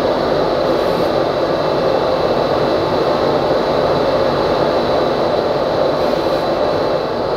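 Wieland FS-216 industrial wet vacuum running while its hose nozzle sucks coolant out of a metalworking machine's coolant tank: a loud, steady rush of air and liquid, with a thin steady high tone over it.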